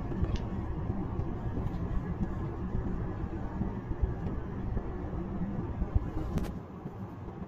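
Car driving, heard inside the cabin: a steady low engine and road rumble. A sharp click comes about six seconds in, and the rumble eases off just after it.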